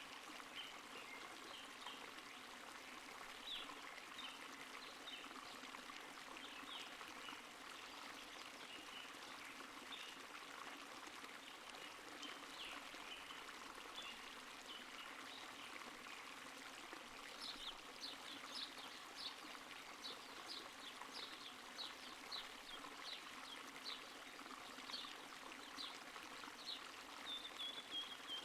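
Faint steady rush like running water, with birds giving many short, high, falling chirps that come more often in the second half.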